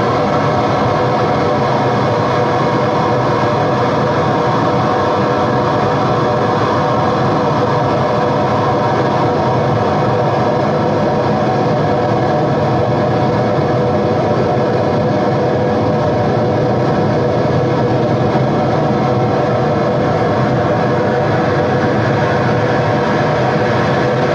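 Live noise music: a loud, dense, unchanging drone with several steady held tones under a wall of hiss.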